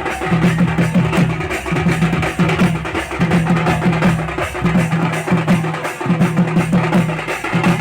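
Loud drum-led music with a fast, driving beat: rapid low drum strokes in short repeated phrases.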